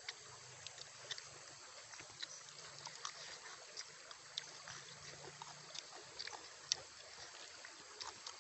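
Eating sounds: wet mouth clicks and lip-smacking from chewing grilled chicken, with soft tearing as the meat is pulled off the bone by hand. Many short clicks, one louder one about two-thirds of the way through.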